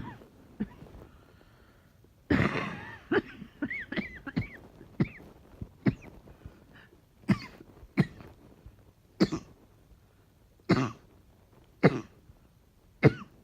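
A woman coughing: a fit of several rapid coughs about two seconds in, then single coughs spaced about a second apart.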